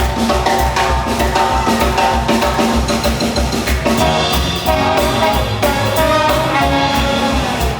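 Swing jazz band playing, with trumpets and trombones over a steady drum-kit beat.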